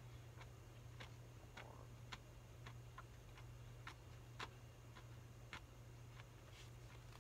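Near silence: faint, sharp clicks about twice a second, slightly uneven in spacing, over a steady low hum.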